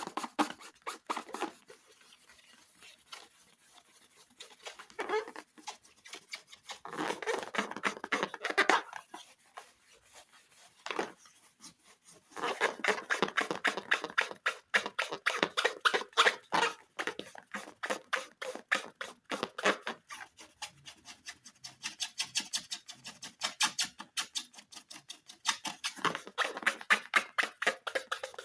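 Slime being handled and kneaded, making bursts of rapid, wet, sticky clicking and crackling with short quiet pauses between.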